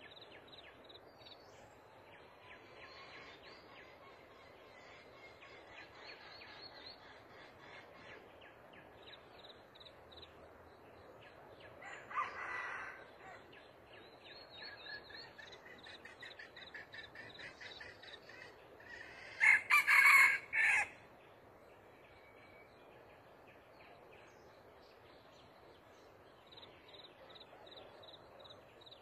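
Red junglefowl rooster crowing: one loud, clipped crow about two-thirds of the way through, and a fainter call earlier. Faint high bird chirps repeat in the background.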